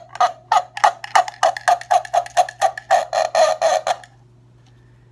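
Duck-in-a-cup noisemaker: a wet paper towel pulled down a string threaded through the bottom of a cup, the towel catching and slipping on the string while the cup amplifies it into a rapid series of duck-like squawks, about five a second. The squawking stops about four seconds in.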